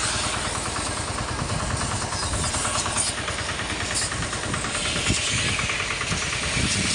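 An engine running steadily under the hiss of high-pressure washer guns spraying water onto a tipper truck's raised steel body and chassis.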